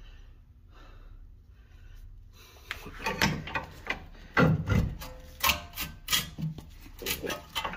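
A steel pry bar scraping and knocking against a Honda Civic's front suspension as the lower ball joint is levered loose from the control arm. Irregular metal scrapes and clunks start about two and a half seconds in.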